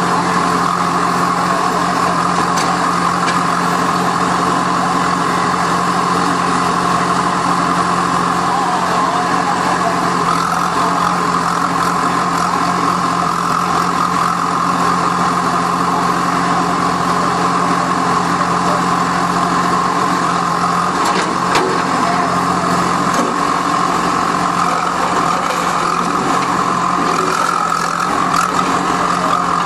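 Diesel engines of heavy construction machinery running steadily: an unbroken drone that holds the same pitch, with no revving.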